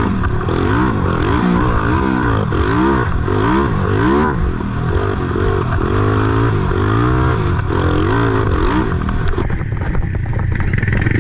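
Honda TRX300EX quad's single-cylinder four-stroke engine revving up and down again and again as it is ridden through deep whoops, the pitch climbing and dropping with each bump. About nine and a half seconds in, the rising and falling revs give way to a rougher, steadier engine noise.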